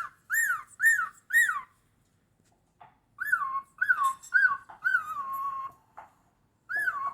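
A cockatiel whistling its song: phrases of short, arched notes that each rise and fall, with pauses between the phrases. One note in the middle phrase is held longer and slides down.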